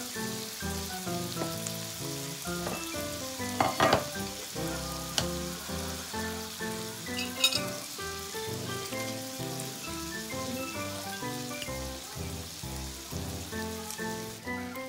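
Yakitori skewers and rice patties sizzling on an electric hot plate, under background music with a stepping melody. A few sharp clicks stand out about four seconds and seven and a half seconds in.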